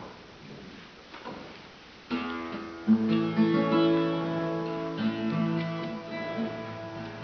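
Acoustic guitar strummed in chords, starting about two seconds in after a quiet stretch with a few faint knocks.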